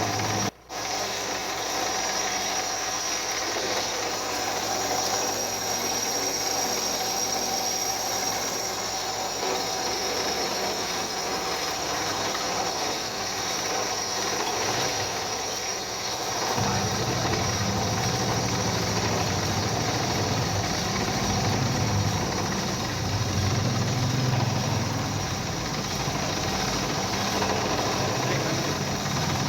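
Workshop machine running steadily, a continuous mechanical noise with a faint high whine; a deeper low rumble joins about halfway through.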